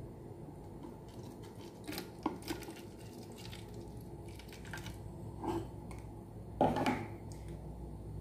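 Plastic bottle and plastic measuring jug knocking and tapping lightly while liquid is poured from the jug into the bottle, a handful of small clicks with the loudest knock near the end. A low steady hum runs underneath.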